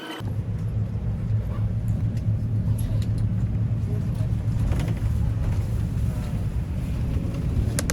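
Steady low rumble of a moving road vehicle, starting abruptly at a cut just after the beginning, with a few faint ticks and clicks over it.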